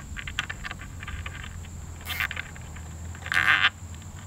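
A nylon zip tie being pulled tight around fireworks fuse: a brief ratcheting zip just after two seconds in, then a longer, louder one a little after three seconds. Light scattered ticking runs underneath.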